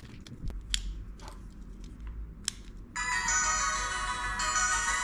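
A few light clicks and taps of handling, then about three seconds in a gashapon train departure-bell toy starts playing a Japanese station departure melody, a bright electronic chiming tune.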